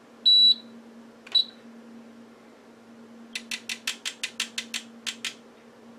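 HP 34401A 6.5-digit multimeter powering up with a key held for its full self-test: one short high-pitched beep, a brief blip about a second later, then a quick run of about a dozen clicks, several a second, from its relays switching through the test.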